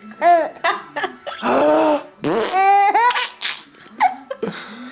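Baby laughing in several short bursts, set off by fart noises made for her.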